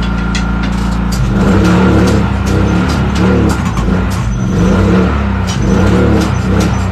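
Tire-changer machine turning its turntable under load, working the new tire's bead over the steel rim. A steady hum changes about a second in to a wavering, pulsing drone, with scattered clicks.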